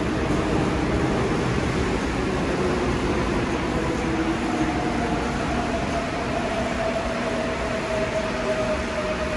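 Korail commuter train running into an underground station platform behind screen doors: a steady rumble with a faint whine that comes in about halfway and falls slowly in pitch as the train slows to stop.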